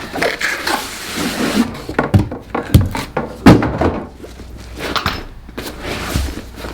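Tool kit packaging being handled: rustling, with a series of irregular knocks and thunks, the loudest about three and a half seconds in.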